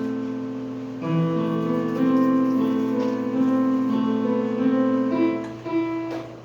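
Background music: piano-like keyboard chords with held notes, fading out near the end.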